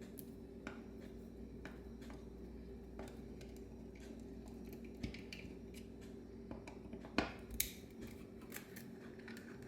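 Small metal clicks and taps as a screwdriver and hand tools work on a Bendix Stromberg WWC carburetor, backing out screws that are rough to remove, with two sharper knocks a little past seven seconds in. A steady low hum runs underneath.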